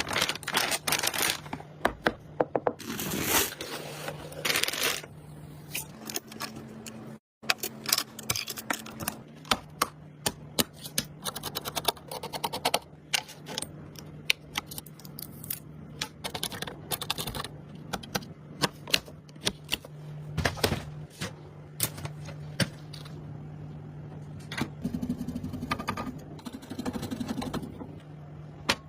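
Rapid clicks, taps and scrapes of computer parts being handled and fitted during a PC build, over a steady low hum. The sound cuts out briefly about seven seconds in.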